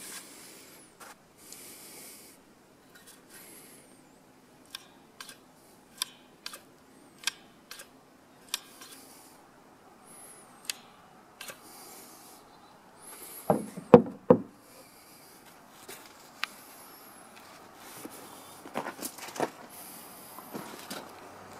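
Handling of a black-powder serpentine pistol and its wooden rest: scattered light clicks and rubbing, with three louder knocks about two thirds of the way through.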